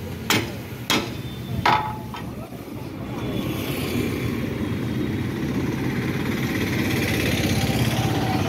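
Hammer blows on the steel loader linkage of a Cat 424B backhoe loader, about four sharp ringing strikes in the first two seconds. An engine runs underneath and grows louder from about three seconds in.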